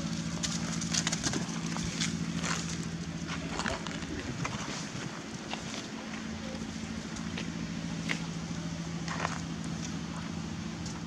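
A steady low engine hum, which fades for a moment about four seconds in, with scattered light clicks and rustles of dry leaves.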